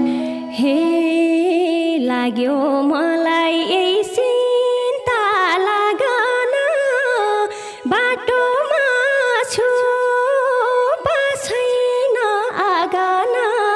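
A woman singing a slow, free-rhythm Nepali lok dohori line into a microphone, her voice gliding and bending in ornamented turns, with no drums beneath it.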